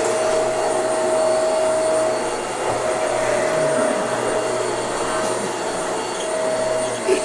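Vacuum cleaner running steadily: a constant rush of air with a steady whine on top.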